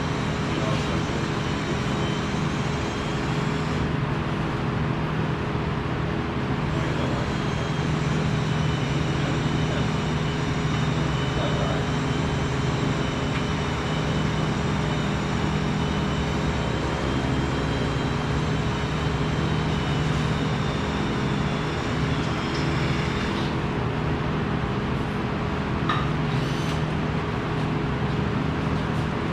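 Steady hum of running machinery with a few held tones over a noisy background, unchanging throughout.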